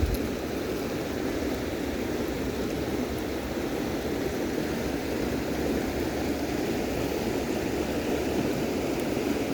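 River water rushing steadily over rocks, a constant noise without breaks.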